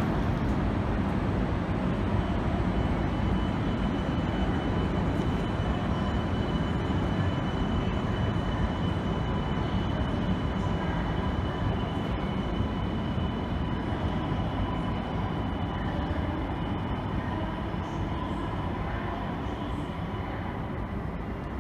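Shinkansen train running along a station platform: a steady rumble with a faint, even whine on top, slowly fading over about twenty seconds.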